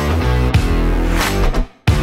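Rock music with guitar, loud and busy, with a short break near the end before it comes back in.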